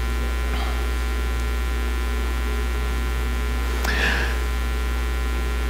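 Steady low electrical mains hum, with one faint short sound about four seconds in.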